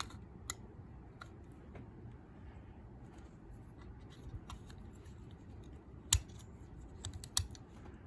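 Light, scattered metallic clicks and taps as the small parts of a three-lever warded lever lock are handled and fitted back into the lock case. The sharpest clicks come about six seconds in and again near the end.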